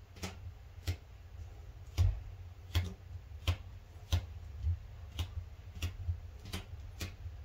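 Sharp clicks at a steady pace, about three every two seconds, over a low steady hum.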